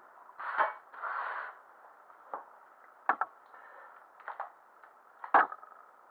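Tabletop handling sounds: a brief scrape about a second in as a small printing mat is slid across a cutting mat, then scattered small knocks and clicks as the plastic CreoPop 3D printing pen is picked up, twisted and pulled open. The loudest click comes near the end.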